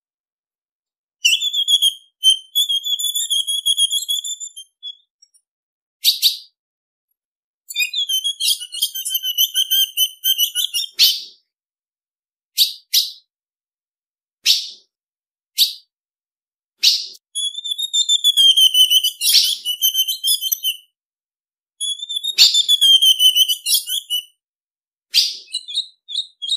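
Female azulão (ultramarine grosbeak) calling: bouts of rapid, chattering notes lasting one to four seconds alternate with short, sharp single chips. The gaps between them are dead silent.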